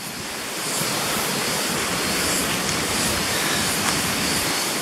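Steady rushing of falling water, a waterfall or cascade, filling the sound with a dense hiss. It swells up over about the first second, then holds steady.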